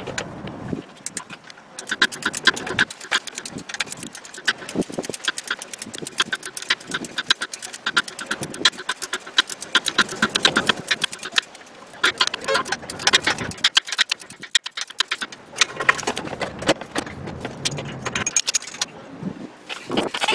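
Flex-head ratchet clicking in quick runs of strokes as it turns the starter's top mounting bolt with a 13 mm socket on an extension, with short pauses between runs.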